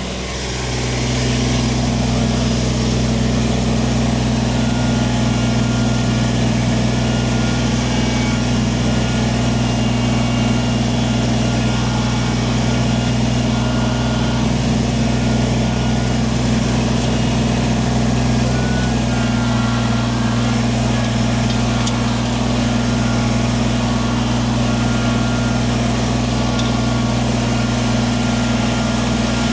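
Kubota tractor's diesel engine running steadily while the loader works; the engine note comes up about a second in and shifts slightly in pitch about two-thirds of the way through.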